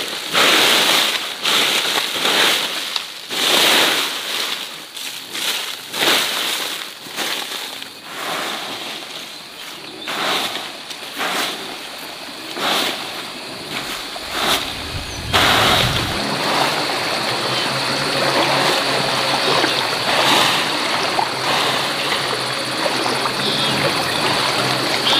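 Water splashing in a run of irregular splashes, changing about fifteen seconds in to a steady rush of running water.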